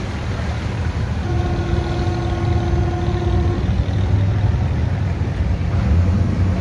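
Steady low engine drone of a boat running underway. About a second in, a single held tone sounds for roughly two seconds over it.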